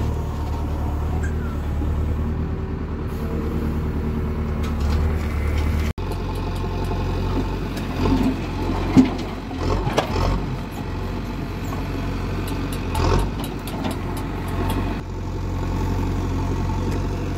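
JCB 3DX backhoe loader's diesel engine running steadily under load as the backhoe digs and swings. Soil and stones clatter out of the bucket into a tractor trolley, with a sharp knock about nine seconds in.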